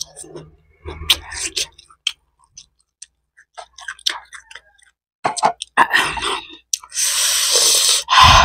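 Close-miked eating sounds: boiled chicken being torn apart by hand and chewed, with small wet clicks and smacks, then denser noisy bursts and a longer breathy noise near the end.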